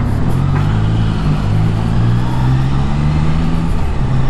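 Motorcycle engine running at low speed while riding, its pitch shifting slightly with the throttle, under steady wind and road noise.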